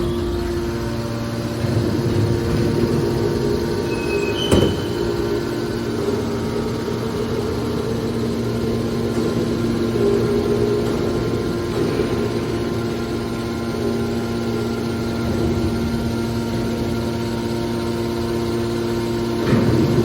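Hydraulic aluminum baler running: a steady machine hum from its motor and pump, with a single metallic knock about four and a half seconds in.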